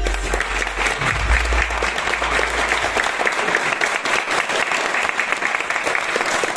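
Audience applauding steadily. A low hum underneath fades out about three seconds in.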